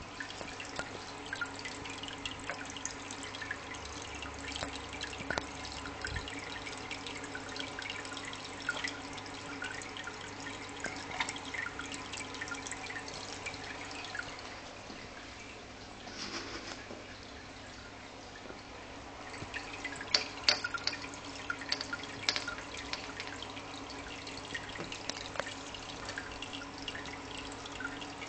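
Water dripping and trickling into an aquarium, many small drips over a steady low hum, with a louder run of drips a little past two-thirds of the way through.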